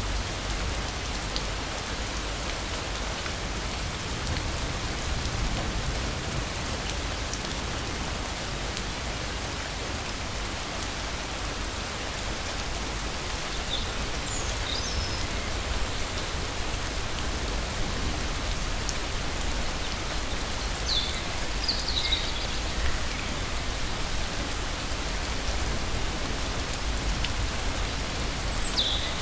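Steady rain falling, an even hiss, with a few brief high chirps about halfway through and again near the end.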